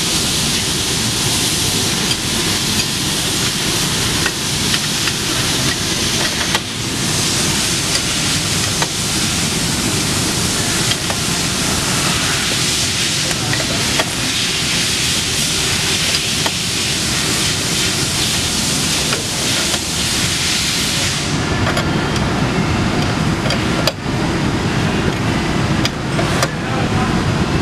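Steady factory-floor noise: a loud hiss over a low rumble, with a few faint clicks. The hiss drops away suddenly about three-quarters of the way through.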